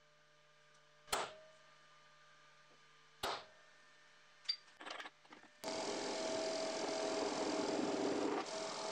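A spring-loaded center punch snaps twice on a steel bar, about two seconds apart, each strike a sharp click with a short ring, followed by a few lighter clicks. Then a machine spindle is suddenly heard running and drilling into the steel bar, a steady hum with a steady whine over it.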